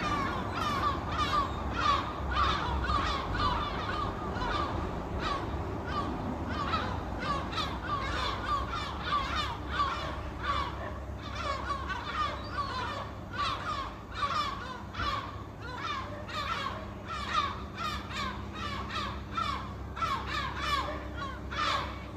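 A flock of seabirds calling, many harsh, cawing calls overlapping and repeating several times a second, over a steady low rumble.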